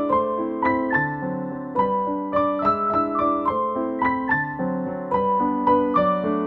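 Background piano music: a gentle melody of struck notes with a few notes a second.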